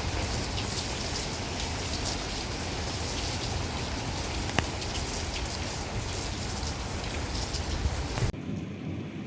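Heavy rain pouring down in a thunderstorm, a dense steady hiss with a single sharp click about halfway. About a second before the end the rain cuts off abruptly to a much quieter background.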